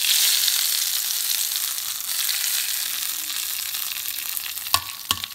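A hot oil tempering of fennel seeds, curry leaves and dried red chillies is poured into chicken gravy. It sizzles loudly at once, then slowly dies down. Near the end come two sharp metal clinks, likely the small steel pan.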